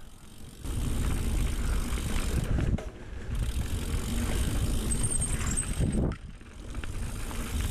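A YT Capra full-suspension mountain bike being ridden on a dirt trail: steady tyre and drivetrain noise with rattling from the bike. A brief high squeak comes about five seconds in, and the sound drops away for a moment about six seconds in.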